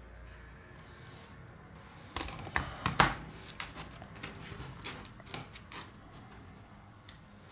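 Light clicks and knocks of a Lenovo Tab A8 tablet's plastic frame being handled on a table, the loudest knock about three seconds in, as fingers press around the edges of the newly fitted screen.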